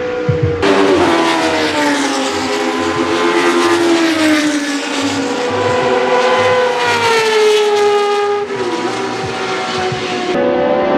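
Historic Formula One racing car engines running at high revs on track. The engine note falls, climbs and drops again with the gear changes and passes, with abrupt shifts where the shots change.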